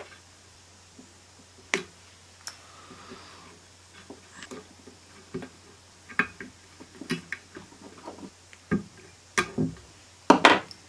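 Irregular small clicks and ticks of thin enamelled copper coil wires being bent and pulled out by hand on a washing-machine stator, the loudest cluster near the end, over a faint steady low hum.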